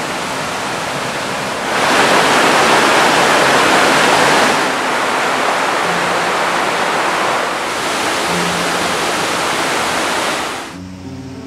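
Rushing water of hot-spring waterfalls and stepped cascades, a steady loud rush of falling water. It grows louder about two seconds in, eases a little midway, and falls off just before the end.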